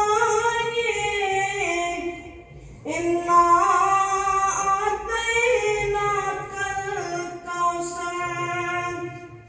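A boy singing unaccompanied, long held notes that slide between pitches, in two phrases with a short breath about two and a half seconds in.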